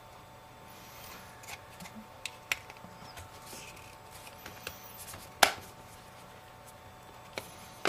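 Light clicks and taps of an iPhone 5S's screen assembly being handled and pressed back into its aluminium case, with one sharp click about five and a half seconds in.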